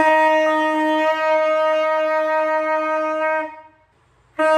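Saxophone played by a beginner: one long held note of about three and a half seconds, a short break for breath, then the same note starts again near the end. The keys being pressed leave the pitch unchanged.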